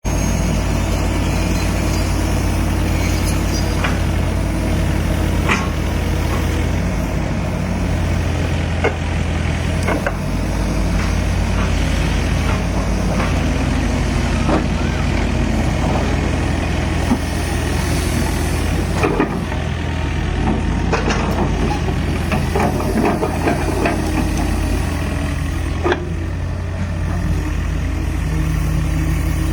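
Excavator's diesel engine running steadily, with a scattering of sharp knocks from the machine working.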